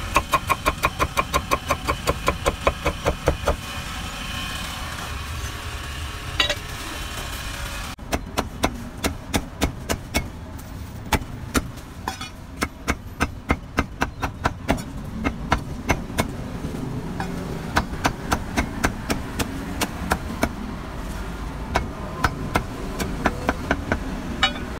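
Meat cleaver chopping roast meat on a chopping block: quick, sharp chops at about four a second, in runs with short pauses, over steady street traffic noise.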